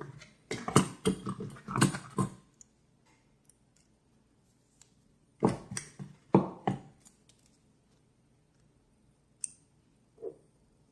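Small metal lighter parts and a screwdriver clicking and tapping against each other and the work surface during hand disassembly of a Dunhill Rollagas lighter. The sound comes as two clusters of quick knocks, then a couple of single taps near the end.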